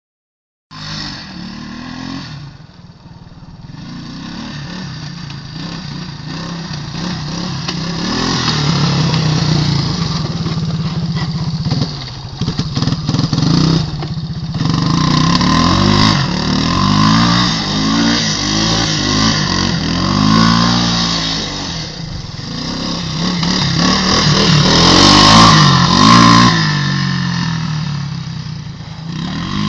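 Motor vehicle engine running and revving up and down over and over, its pitch rising and falling in waves. It grows louder through the clip and is loudest near the end.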